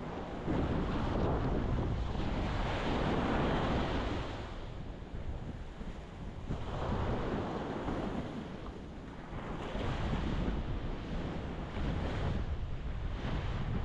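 Ocean waves breaking and washing on a rocky shore, the surf swelling and ebbing in three surges, with wind rumbling on the microphone.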